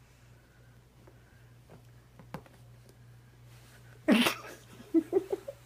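A child laughing: a sudden breathy burst of laughter about four seconds in, then a few short giggles, over a quiet room with a faint steady hum.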